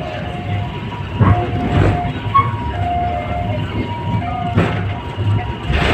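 Train running, heard from on board: a steady low rumble with a few sharp knocks and brief steady high tones.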